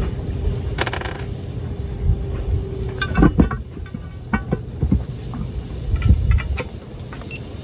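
Galvanized steel anchor parts clinking and knocking in a series of short metallic strikes as the shank is worked into the fluke and the bolt holes are lined up.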